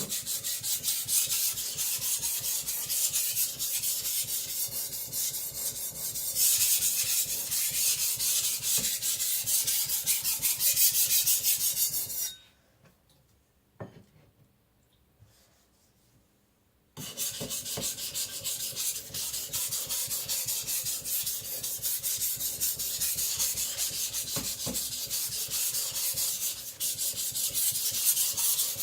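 Steel cleaver blade stroked rapidly back and forth on a whetstone: a rhythmic scraping that stops for about five seconds midway, then resumes. This is the blade being thinned on a low relief bevel.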